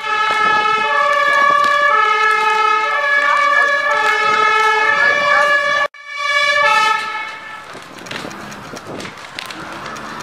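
Emergency vehicle two-tone siren, stepping between a low and a high note about once a second. It cuts off abruptly about six seconds in, returns briefly, then fades into a quieter noisy background.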